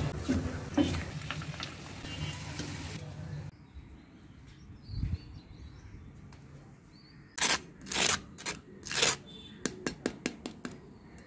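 A breaded chicken drumstick sizzling and crackling as it deep-fries in hot oil, cutting off suddenly about three and a half seconds in. Later come three loud noisy strokes, each under a second, then a run of short clicks.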